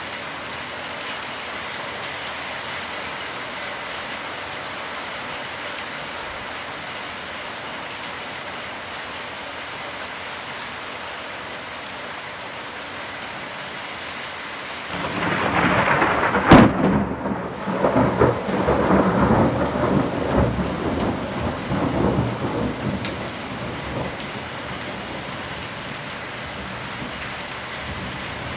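Steady heavy rain falling, with a thunderclap about halfway through: a building rumble, one sharp crack, then rolling rumbles that die away over several seconds, leaving the rain.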